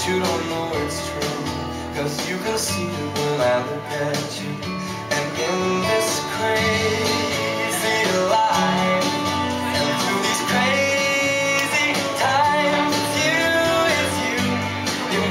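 Country-style song led by guitar, with a singer's voice at times.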